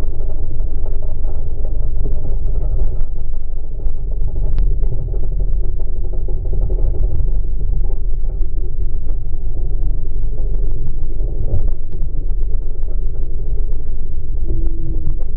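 Two-stroke OMC 'GT VRO' outboard motor running steadily at planing speed, heard from just above it at the stern, as a loud continuous low rumble mixed with wind buffeting the microphone.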